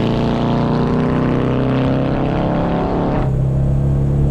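Twin-turbo 2.4 L air-cooled flat-four of a 1959 VW Beetle running under way at a steady, slightly wavering pitch. About three seconds in, the sound drops abruptly to a duller, steadier drone.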